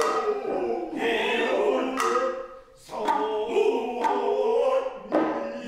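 Noh chant sung by many voices in unison, slow sustained lines of utai, punctuated by sharp drum strokes roughly once a second.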